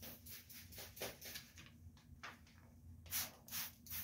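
Trigger spray bottle of soapy water misting onto the glass and tint film: faint short hisses at first, then three louder quick sprays about half a second apart near the end.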